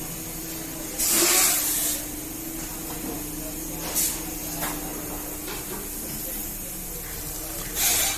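Steady factory machine hum, broken by three loud hissing bursts: a long one about a second in and shorter ones near four seconds and near the end.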